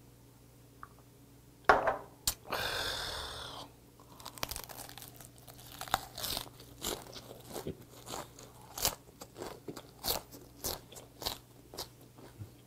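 Close-miked chewing of a napa cabbage wrap filled with gwamegi and vegetables, with a long run of crisp crunches as the cabbage is bitten through. About two seconds in there is a sharp knock, then a short breathy rush of sound, before the crunching starts.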